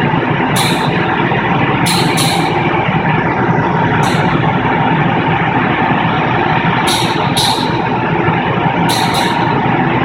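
Crematorium cremation furnace running with a loud, steady roar and a faint steady whine, broken by short, sharp hisses at irregular intervals, about nine of them, some in quick pairs.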